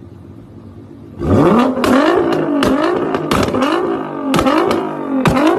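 A car engine idling, then from about a second in revved in quick repeated blips, roughly one every 0.7 seconds. Each blip rises in pitch and is cut off by a sharp crack.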